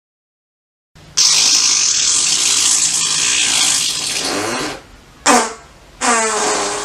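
Fart sounds. After about a second of silence comes a long, airy, hiss-like fart of about three and a half seconds. Near the end come two shorter farts whose pitch falls.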